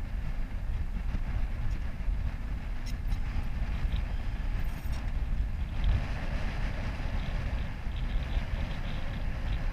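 Steady low rumble of wind on the microphone aboard a sailboat under way, with a brighter hiss coming in about six seconds in. Faint scattered clicks come from a sailboat deck winch being cranked by hand.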